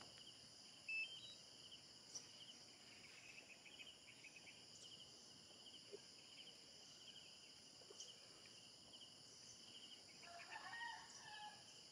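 Quiet farmyard background: faint steady insect chirring, with a chicken calling once for about a second near the end.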